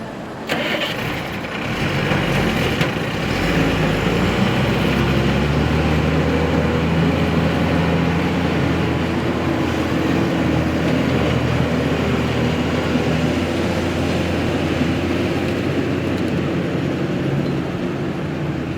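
Heavy diesel engine of earthmoving machinery running; it picks up about two seconds in, then holds a steady note.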